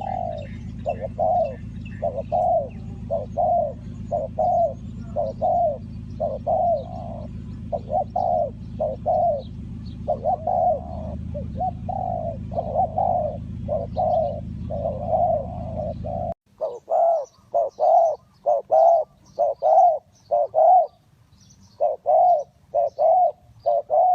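Spotted dove cooing, a rapid run of repeated coo notes about two a second, with faint small-bird chirps above. A steady low hum underneath cuts off suddenly about two-thirds of the way through, leaving the cooing alone.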